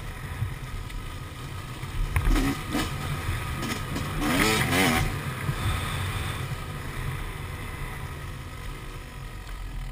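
Yamaha YZ250 two-stroke dirt bike engine running while ridden over a dirt trail, revving up and down in a louder burst about four seconds in, with wind rumbling on the microphone throughout.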